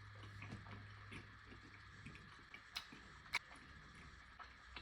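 Faint chewing of a steak tortilla pizza, soft and irregular, with two sharper mouth clicks about three seconds in.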